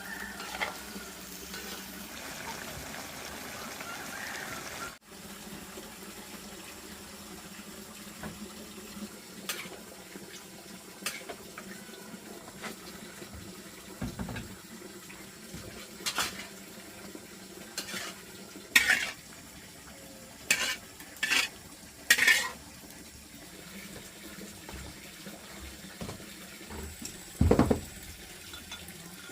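Kitchen work: pots, dishes and utensils clinking and clattering in scattered knocks and a few short bursts, with a steady hiss of water or frying in the first few seconds that stops abruptly.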